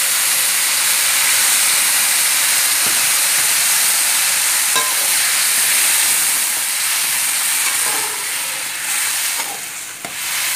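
Hot water poured into a metal pan of ghee-roasted vermicelli, hissing and sizzling loudly as it boils off in steam. After about eight seconds the hiss eases and a slotted spoon scrapes and stirs through the vermicelli.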